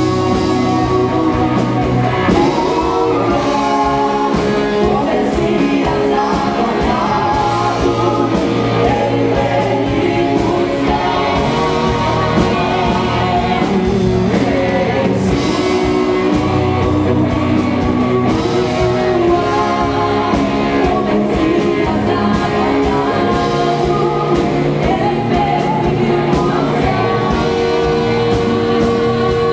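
Rock-style band music with singing, guitar audible, playing steadily throughout.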